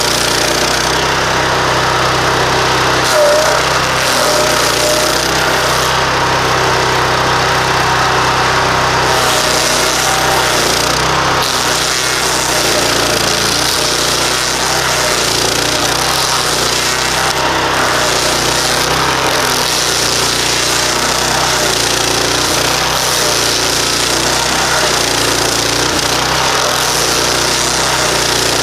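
Stump grinder with a 15 hp Loncin engine running steadily while its nine-tooth cutting head grinds into an old pine stump.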